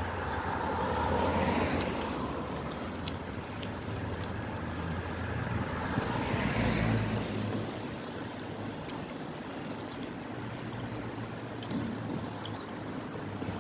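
Wind rushing over the microphone of a camera on a moving bicycle, with road noise. It swells louder about a second and a half in and again about six seconds in, and a low hum underneath fades out around seven seconds in.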